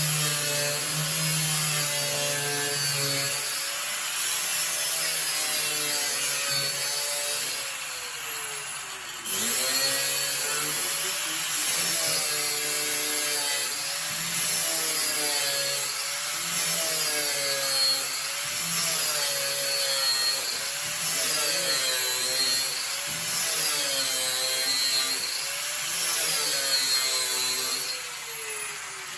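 Repeated sawing strokes, a rasping sound that rises and falls in pitch about every two seconds.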